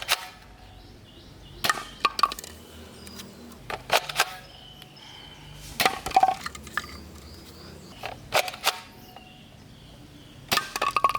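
Sharp plastic clicks and knocks from toy guns being handled, coming in small clusters every second or two, some as quick double clicks.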